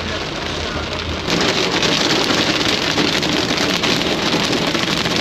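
Heavy rain on a car's roof and windshield, heard from inside the cabin over low road rumble. About a second in, the rain turns louder and denser, with many small drop impacts.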